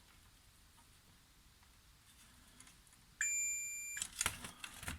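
Multimeter giving one steady high beep of just under a second, about three seconds in, as its probes are put across an LED on the backlight strip to check its polarity; a few sharp clicks of the probes follow.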